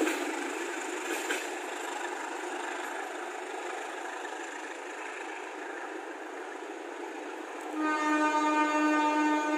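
Passenger train rolling away along the track, its wheel and rail noise slowly fading, then a train horn sounds one long steady blast starting near the end.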